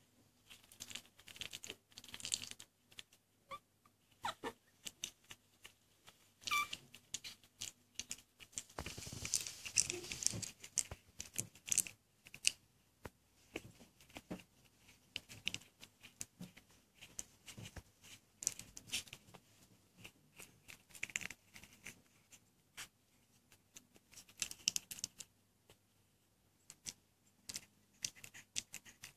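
Young puppies wriggling and mouthing one another on a towel: soft rustling of the cloth with many small clicks and smacks, and a brief squeak about six and a half seconds in.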